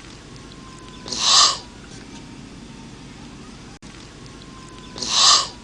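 Two short, harsh animal calls about four seconds apart, over a steady low hum.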